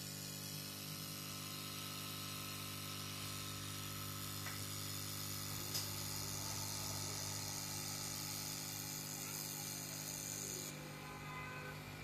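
Steady hiss over a low electrical hum, with a single sharp click a little before six seconds in; the high part of the hiss cuts off suddenly near the end.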